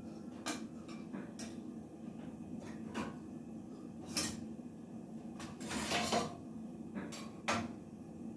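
Metal serving spoons clinking and scraping against a skillet as stuffing is scooped out, in scattered separate knocks, with a longer scraping stretch about six seconds in.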